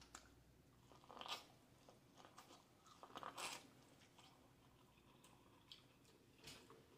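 Corn on the cob being bitten and chewed, kernels crunching off the cob, with two louder bites about a second in and around three seconds in, then a few soft mouth smacks.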